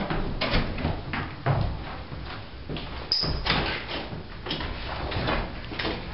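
A door being handled, with thuds and knocks mixed with scuffing footsteps, and a brief high squeak about three seconds in.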